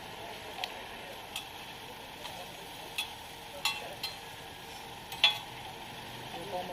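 Thai banana pancake (roti) frying in oil on a street vendor's griddle, a steady sizzle with several sharp taps scattered through it, the loudest about five seconds in.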